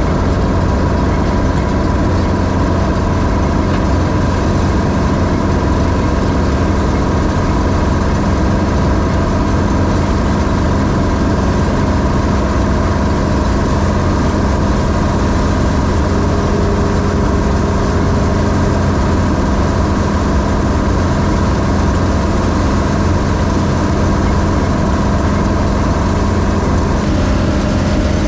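John Deere 3300 combine running steadily, a constant engine hum with machinery noise; the pitch shifts slightly about a second before the end.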